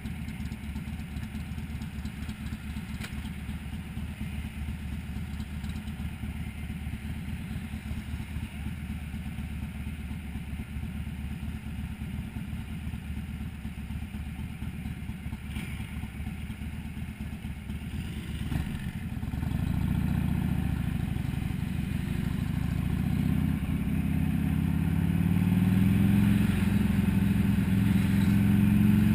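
Motorcycles idling with a steady low throb, the nearest a Buell XB12S V-twin. About 19 seconds in the engine sound gets louder as they pull away and accelerate, the pitch rising in steps as the rider shifts up through the gears.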